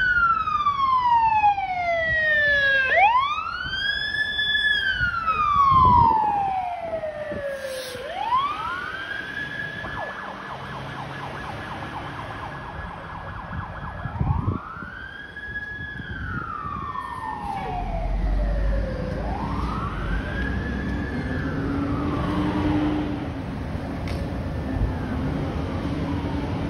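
Emergency vehicle siren wailing, sliding up and falling back in slow cycles of about three to four seconds, loudest at the start. About ten seconds in, it holds at the top with a fast flutter for a few seconds. A vehicle engine rumbles low in the second half as the siren fades.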